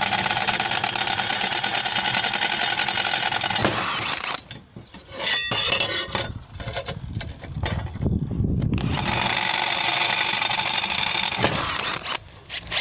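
Cordless drill with a small twist bit drilling through metal plate. It runs steadily for about four seconds, stops for several seconds with a few knocks, then drills again about nine seconds in.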